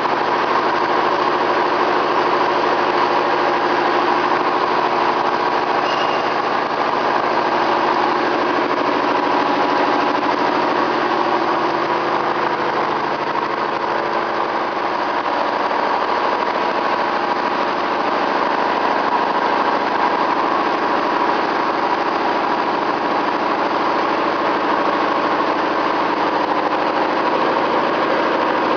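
Universal milling machine running steadily, its motor and gear train giving an even whine of several held tones.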